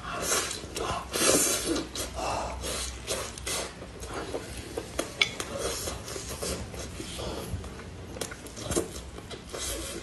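Close-miked mukbang eating sounds: wet sucking and chewing as meat is pulled off a bone with the mouth, with irregular smacks and clicks, and boiled meat being torn apart by gloved hands. The loudest stretch comes about a second in.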